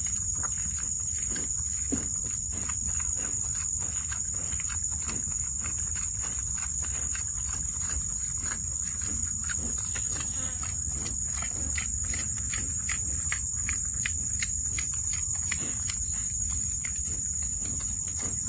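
Steady, high-pitched insect chorus, like crickets, with many irregular small clicks and rustles over a low rumble.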